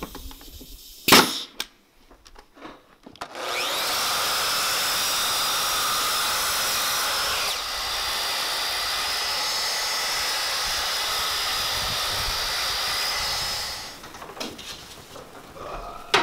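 A pneumatic finish nailer fires once, a single sharp crack about a second in. A couple of seconds later a compound miter saw spins up and runs steadily for about ten seconds while cutting a strip of door trim, then winds down.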